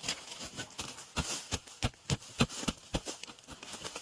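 A digging hoe chopping repeatedly into soil and roots around a winter bamboo shoot, a quick run of sharp thuds about three a second.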